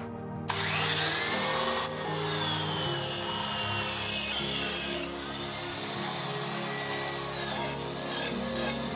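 A power tool running under load, a loud continuous rasping with whining tones that slide down in pitch. It eases off briefly about five seconds in, then picks up again.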